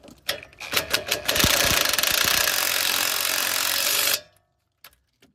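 DeWalt cordless impact wrench hammering a brake caliper bolt in for about three seconds, after a few light clicks, then stopping suddenly.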